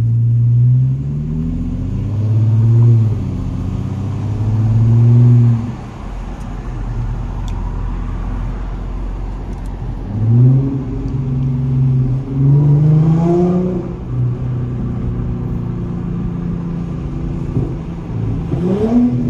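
Audi A7's V6 engine, with its muffler and resonator deleted, heard from inside the cabin while the car drives in traffic. It pulls up through the gears in two runs of acceleration, the exhaust note rising in pitch over the first few seconds and again about ten seconds in, with steady cruising between.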